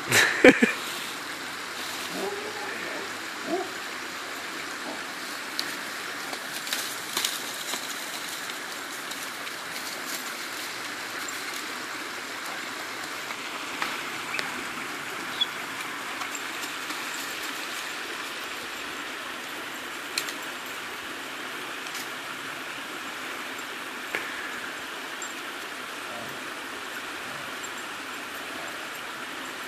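Small woodland creek running steadily, with a few scattered sharp clicks and knocks, the loudest right at the start.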